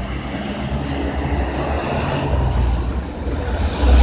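A large bus passing close, its engine rumble and tyre noise growing steadily louder, with a thin high whine coming in near the end.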